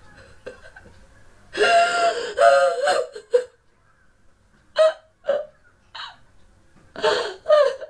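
A woman crying: two longer sobbing cries about a second and a half in, then a run of short, gasping sobs with pauses between them.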